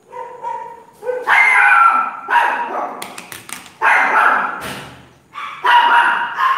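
A dog barking and yipping repeatedly, in about five loud bursts spread across a few seconds.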